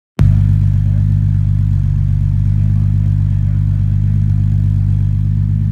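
Chevrolet Omega 3.6 V6 idling steadily through a straight-through exhaust with the catalytic converters removed and 5-inch stainless steel sport mufflers, a low, even rumble from the tailpipes. It cuts in a fraction of a second after a brief gap.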